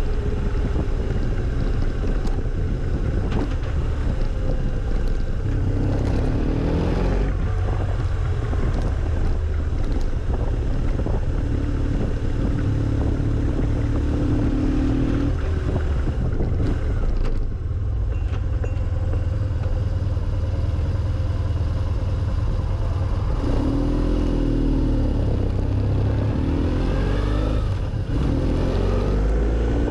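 Engine of a moving vehicle under heavy wind rumble on the microphone; its pitch rises several times as it accelerates through the gears and holds steady for a few seconds in the middle.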